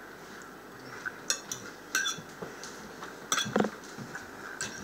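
Metal fork clinking and scraping against a dinner plate: a few short, sharp clinks spread through a quiet pause while eating.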